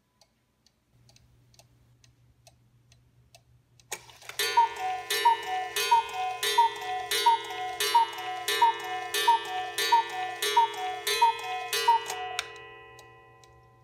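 Cuckoo clock's bellows-and-pipe cuckoo calling the hour, twelve falling two-note calls about one and a half a second, each with a click of the mechanism, starting about four seconds in after faint ticking.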